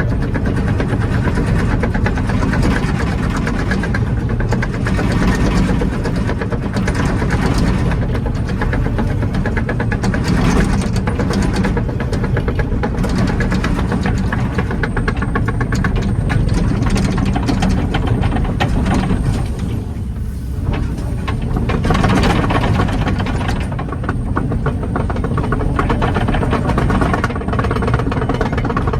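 Kobelco 20-tonne excavator's diesel engine running steadily as the machine tracks, with a continuous rattle of clicks over the engine note. It eases briefly about two-thirds of the way through.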